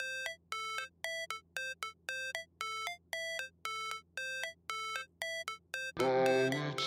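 Background electronic music: a repeated short synth note pattern, about two notes a second, with a fuller, louder section coming in near the end.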